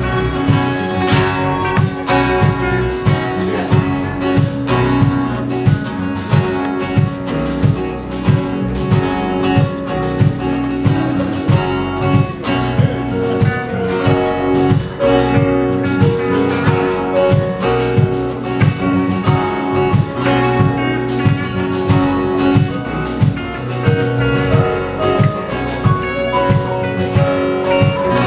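Live gospel band music with strummed guitar over a steady beat, no vocals.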